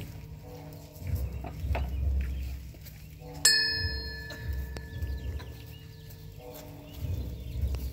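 A Buddhist ceremonial bell struck once, about three and a half seconds in: a clear ring of several steady tones that fades away over about three seconds.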